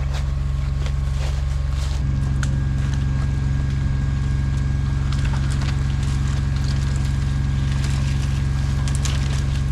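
A large engine running steadily, its speed stepping up slightly about two seconds in, with faint knocks and clicks over it.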